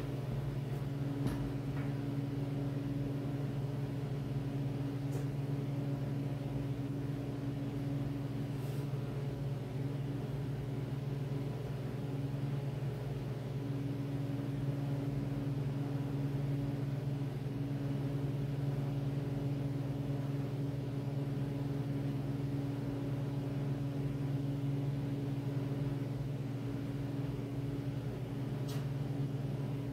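A steady low machine hum, unbroken throughout, with a few faint clicks.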